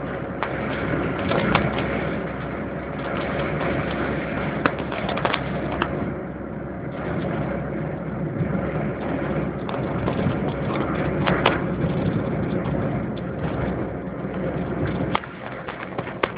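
Car driving, heard from inside the cabin: steady engine and tyre rumble with scattered clicks and knocks. The noise drops in level near the end.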